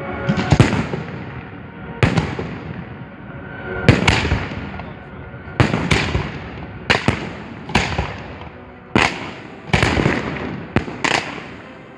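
Professional display fireworks going off close by: about fifteen sharp bangs, some in quick pairs, each trailing off over a second or so.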